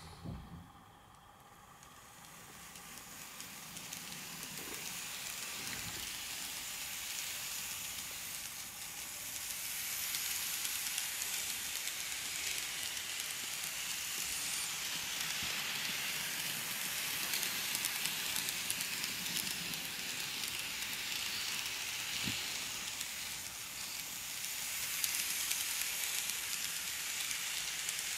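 KATO N-gauge JR 211 series electric train model running around curved track, its wheels and motor making a steady, hissing whirr. It swells over the first few seconds, then holds with small rises and falls.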